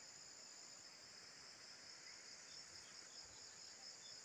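Faint, steady, high-pitched chorus of insects droning without a break.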